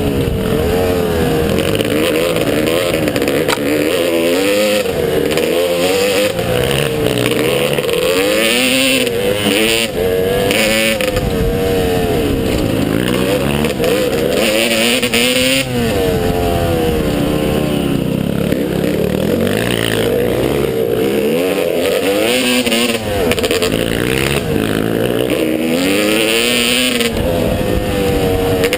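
Motocross motorcycle engine revving up and easing off over and over, its pitch climbing and falling with throttle and gear changes.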